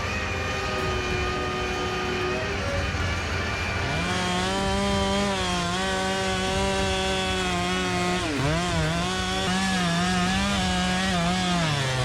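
An engine runs at a steady pitch. About four seconds in, a large chainsaw takes over, running at high revs. Its pitch wavers as it cuts wood, then dips sharply about eight seconds in and recovers.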